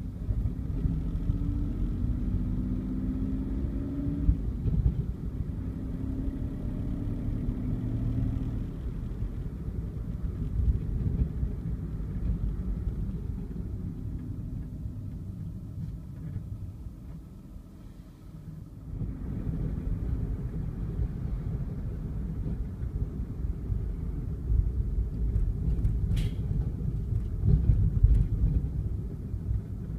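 Car running on town streets, heard from inside the cabin: a steady engine and tyre rumble. The engine note rises as the car pulls away in the first few seconds, eases to its quietest about eighteen seconds in, then picks up again; a brief click near the end.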